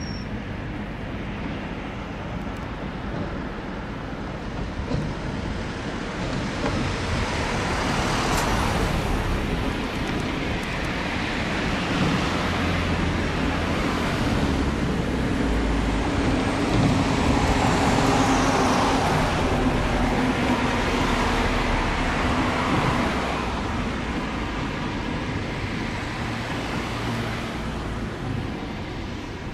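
A passing vehicle: a steady rushing noise that builds over several seconds, is loudest a little past the middle, then eases off, with a steady low hum under the loudest part.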